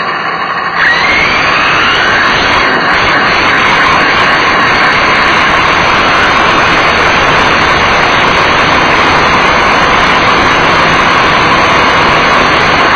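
Small nitro engine of a radio-controlled car running at high revs, its whine climbing as it revs up about a second in. Heard through an onboard action camera, so a loud, dense rush of wind and rattle noise sits over the engine.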